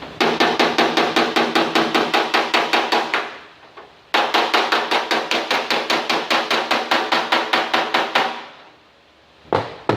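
Rapid hammer taps on the sheet-steel fender of a 1947 Chevrolet pickup, about eight or nine a second with a ringing metallic tone. The tapping comes in two long runs with a short pause between them, and two single knocks follow near the end. This is hammer work smoothing a spot of stretched metal that has just been heat-shrunk.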